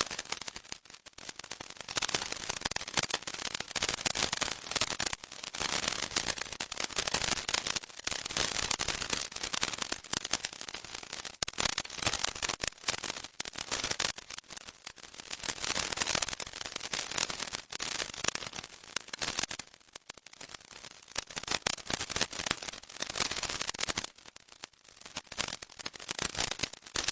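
"Electrified granules" sound effect: a dense electric crackle of tiny clicks that swells and fades back every two to three seconds.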